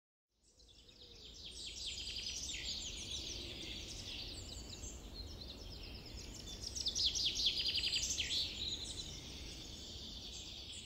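Several birds singing and chirping, with quick trills and repeated short notes, over a low steady rumble of outdoor ambience; it fades in just after the start, and the birdsong is busiest around the seventh to eighth second.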